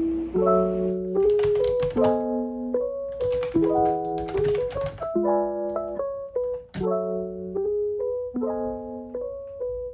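Background piano music playing a simple melody, with a few short runs of sharp clicks mixed in.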